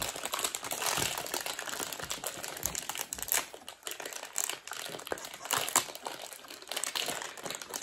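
Plastic and foil wrappers crinkling irregularly as small toy packets are unwrapped and handled by hand.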